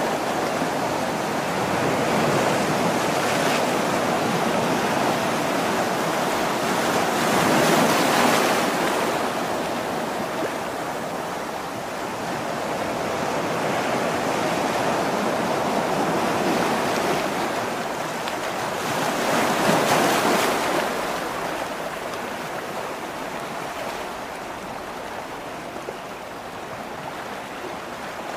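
Sea waves washing onto a rocky shore: a steady rush of surf that swells twice, about a third of the way in and again about two-thirds through.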